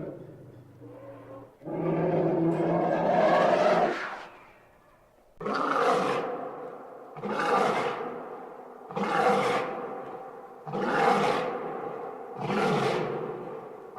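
An animal roaring: one long roar, then five shorter roars in a row, each starting suddenly and fading away.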